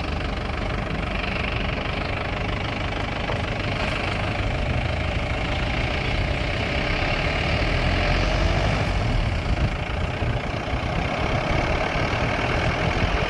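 Engine and road noise of a moving vehicle heard from inside it: a steady low rumble with tyre hiss.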